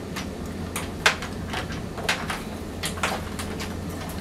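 Irregular clicks, taps and scrapes of a network cable and its RJ45 plug being pushed through a plastic cable channel in a vending machine's cabinet, the sharpest click about a second in. A steady low hum lies underneath.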